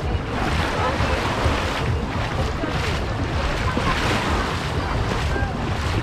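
Small waves washing onto the shore in a steady wash, with wind buffeting the microphone. Faint voices of bathers come through now and then.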